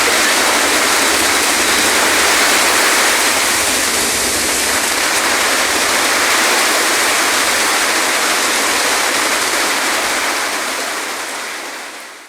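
Loud, steady rushing of water, an even hiss with no distinct drops or splashes, fading away over the last two seconds.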